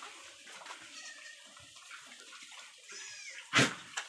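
Pigs feeding on sweet potato leaves, with scattered munching and rustling noises. Near the end there is one short, sharp, loud noise from the pen.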